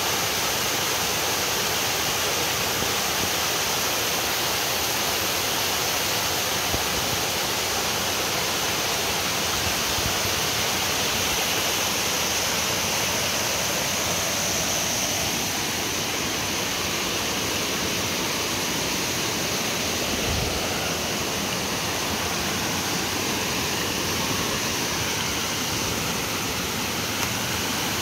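Small waterfall pouring over sandstone ledges into a plunge pool: a steady, unbroken rush of falling water.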